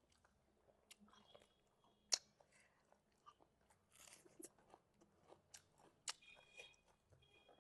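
Quiet close-up sounds of a person chewing food, with scattered sharp mouth clicks; the loudest click comes about two seconds in and another about six seconds in.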